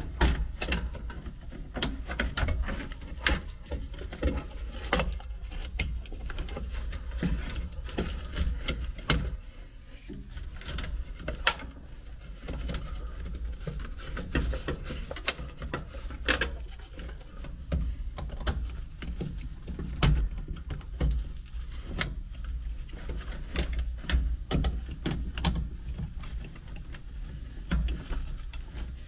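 Irregular clicks, taps and rustling as hands shift wires and plastic connectors against the sheet-metal cabinet of an electric air handler, over a steady low rumble.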